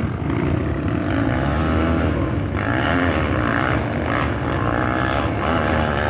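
Several dirt-bike engines revving, their pitches rising and falling as the bikes climb a steep dirt hill.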